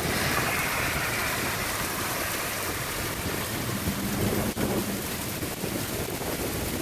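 Heavy rain falling steadily in a storm: a dense, even hiss of rain on surfaces, with a single sharp tick about four and a half seconds in.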